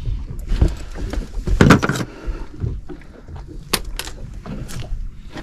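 Irregular clicks and knocks of a sea bass being handled with pliers on a boat deck, with a louder scuffle about two seconds in, over a low steady rumble.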